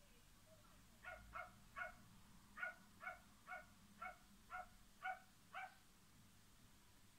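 Yorkshire terrier barking in a run of about ten short, high-pitched yaps, roughly two a second, starting about a second in: playful barking at a cat.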